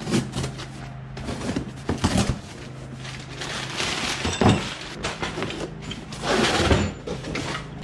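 A cardboard box being slit open with a utility knife and unpacked: crumpled kraft packing paper rustling and crinkling as it is pulled out, amid knocks and scrapes of the box and its contents on a wooden workbench. The loudest rustling comes about four and a half seconds in and again between six and seven seconds.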